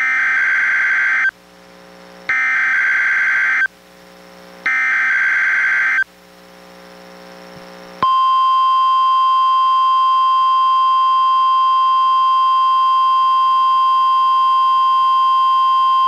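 NOAA Weather Radio Required Weekly Test heard through a weather radio receiver: three digital SAME header data bursts, each about a second and a half long and about a second apart, then about halfway in the steady 1050 Hz warning alarm tone, which holds to the end.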